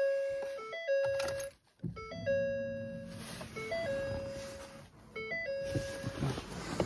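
Ford F-250's dashboard warning chime repeating a short three-note electronic figure about every second and a half, the alert for the driver's door standing open with the key on. From about two seconds in, a low steady hum of the electric fuel pump priming the fuel system with the key on.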